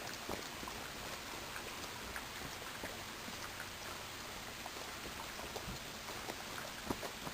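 Faint fizzing and bubbling with many small scattered pops, as HHO gas from a running dry-cell electrolyzer bubbles through the water in the bubbler.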